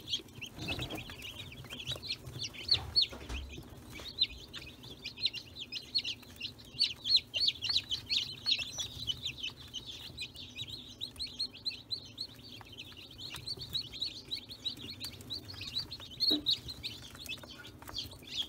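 A brooder full of newly hatched chicks peeping nonstop, many short high cheeps overlapping several times a second.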